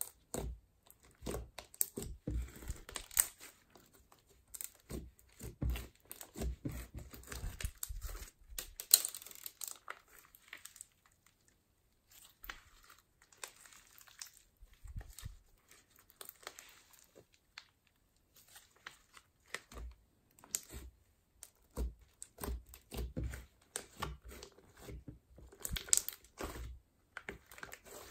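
Silver glitter slime being kneaded, squeezed and stretched by hand: irregular wet crackling and squishing, sparser and quieter in the middle while it is pulled out, busier again near the end.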